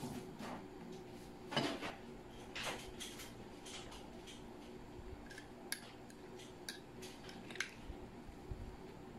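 Soft scrapes and light clinks of glass dishes and a spoon, as a small glass dish of dip is handled beside a glass bowl. A few short, sharp clicks come in the second half.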